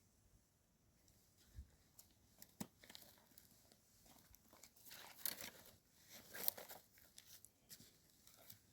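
Faint rustling and crackling, like dry leaves and twigs being disturbed: a scatter of small crinkles and cracks that gets busier about five seconds in.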